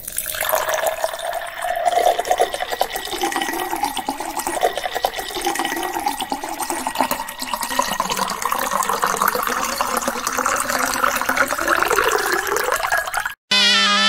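Water pouring in a steady stream into a glass bowl, splashing. The pitch of the pour rises gradually as the glass fills, and the sound cuts off abruptly near the end.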